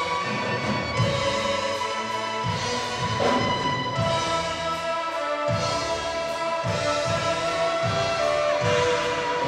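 A school string orchestra playing, with violins bowing held notes over a low rhythmic pulse of about two strokes a second.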